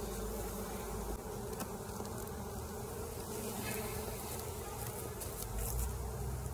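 A swarm of honeybees buzzing steadily around an opened hive as its top box is lifted off.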